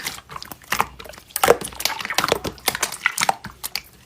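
Slime being squished and pressed by hand, giving an irregular run of sticky clicks and crackles.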